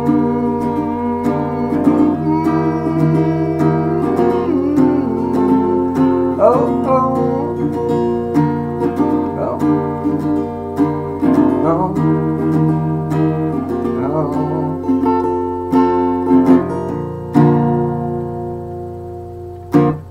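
Guitar strummed through the closing chords of a song, the chords ringing and then thinning and fading out near the end, with one sharp strike on the strings just before it stops.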